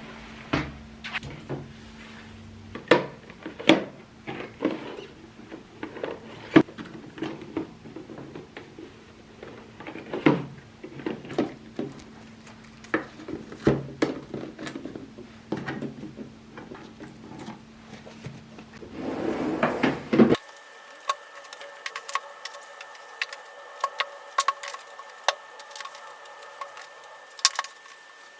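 Light knocks and clatter of objects being handled on a hard surface, over a steady low hum. About twenty seconds in, the sound cuts abruptly to lighter clicks over a steady whine.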